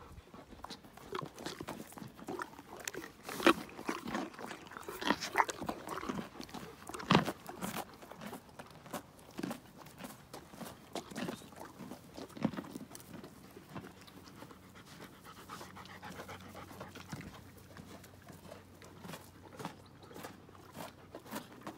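Ponies crunching carrots at close range: irregular sharp crunches, loudest in the first half, amid animal breathing and panting.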